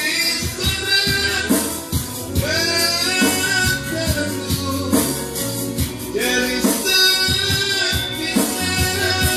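A song: a singing voice over instrumental backing with a steady percussion beat.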